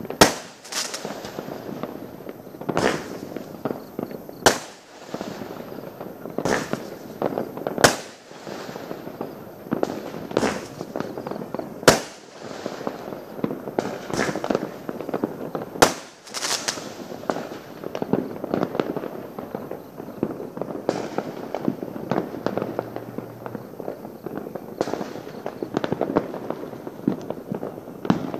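Many fireworks and firecrackers going off across a town at once: sharp bangs every second or two over a continuous rattle of smaller pops and crackles.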